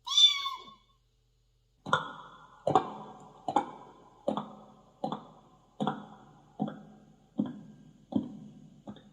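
Mouth-made sound effects: a short chirp that bends in pitch, then a run of about nine sharp, plucky knocks. The knocks are evenly spaced, a little more than one a second, and each rings briefly before dying away. They grow fainter near the end.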